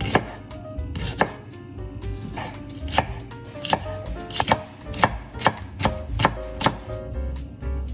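Chef's knife chopping spring onions on a wooden cutting board: a run of sharp knife strikes against the board, coming closer together after about five seconds.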